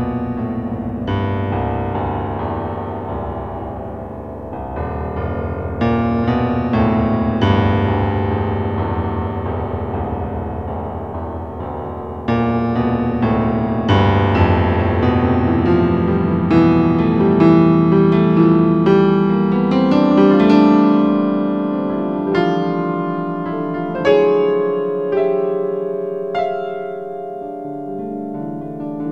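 Solo electro-acoustic piano music: single notes and chords struck one after another and left to ring, growing fuller and louder in the middle.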